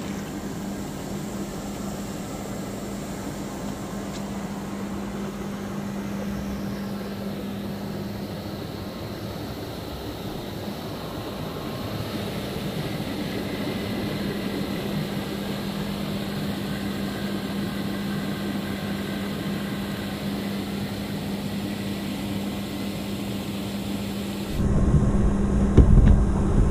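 Inflatable hot tub's bubble blower running: a steady motor hum under the hiss and burble of churning, foaming water. Near the end the water noise becomes much louder and closer, with a low buffeting rumble.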